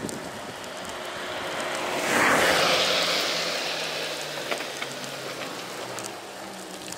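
A car passing close by from behind: its tyre and engine noise swells to a peak about two seconds in, then fades as it pulls away.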